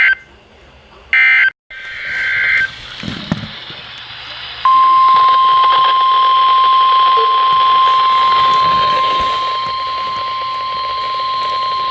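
Emergency Alert System tones off broadcast radio. First come the last short bursts of the digital SAME header, a harsh data screech, which end about a second and a half in. About five seconds in, the steady single-pitch 1050 Hz attention tone begins and holds, over radio hiss, signalling that a warning message is about to follow.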